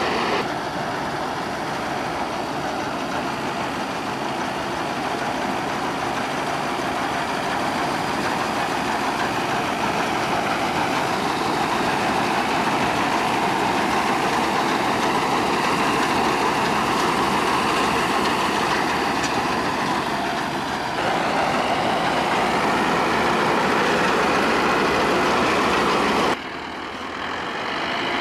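Mahindra Arjun Novo combine harvester's diesel engine and threshing machinery running steadily under load while it cuts and threshes the crop. The loudness drops suddenly about 26 seconds in, then comes back up near the end.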